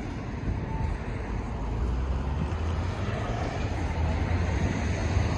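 Street traffic noise: a steady wash of passing cars, with a low engine rumble that grows a little louder about halfway through.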